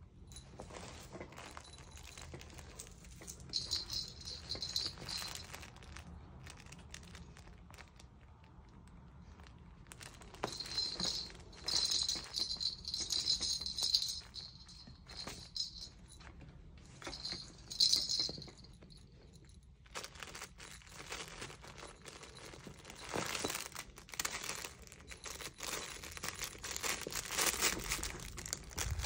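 Small bells in a fabric cat toy jingling in several bouts as a cat bats and wrestles with it. Near the end this gives way to rustling and crinkling of the toy's fabric.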